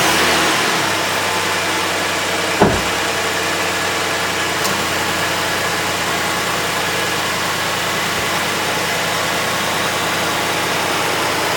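Ford Edge engine idling steadily just after starting, a little louder in the first couple of seconds before settling. A single sharp thump about two and a half seconds in.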